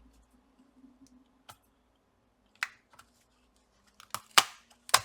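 Sharp plastic clicks and snaps, a handful of them, the loudest near the end, as a laptop's plastic case is pried apart.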